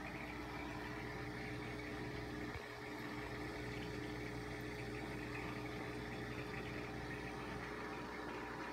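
Steady electric hum of aquarium pumps with an even hiss of air bubbles from a bubble curtain. The sound dips briefly about two and a half seconds in.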